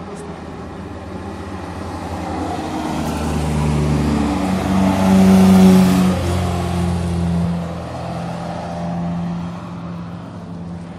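BMW 325i race car's straight-six engine at high revs driving past: the note grows louder over a few seconds, peaks a little past halfway with its pitch shifting in steps, then fades as the car moves away.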